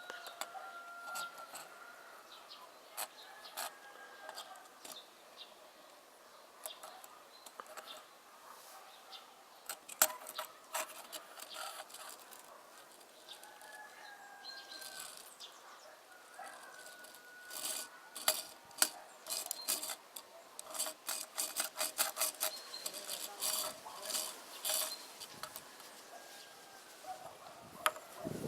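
Plastic building bricks from a toy bulldozer set clicking, tapping and rattling as they are handled and pressed together, in irregular clusters that grow busier in the second half. Short bird chirps sound faintly in the background a few times.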